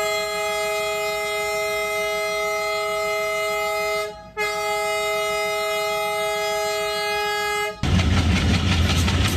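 ALCO diesel locomotive horn sounding two long blasts, the first about four seconds long and the second stopping near eight seconds in. The locomotive's diesel engine then rumbles, louder, as the train gets ready to pull out of the stop.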